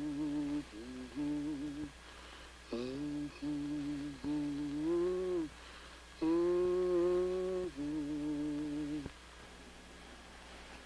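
A woman humming a slow, wordless tune in held notes, phrase after phrase with short pauses between. The longest, loudest note comes about six seconds in.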